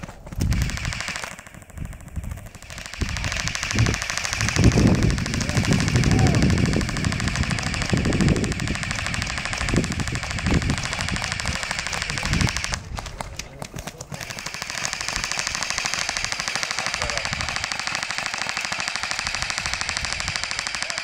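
Airsoft electric rifles firing on full auto: a rapid rattle of shots that runs on almost without a break, with a short pause about two-thirds of the way through. Low rumbling sits under the rattle in the first half.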